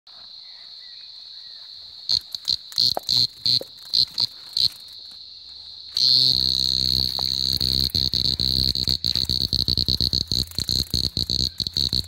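Cicadas droning steadily. From about two seconds a close cicada gives several short loud buzzes, and from about six seconds it buzzes loudly and continuously with a fast rattle: the distress buzz of a cicada on the ground as a dog paws at it.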